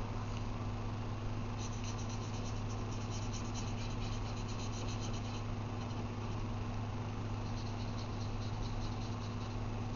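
Marker scribbling quickly back and forth on paper while colouring in, in two spells of rapid scratchy strokes. A steady low electrical hum runs underneath.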